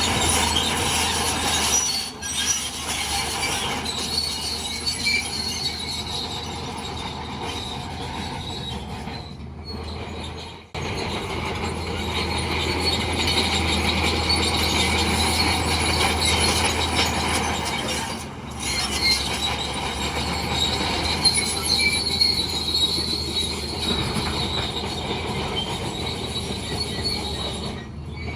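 Crawler bulldozer's steel tracks squealing and clanking over a steady low engine hum, with brief sharp drops in the sound about 2, 11 and 18 seconds in.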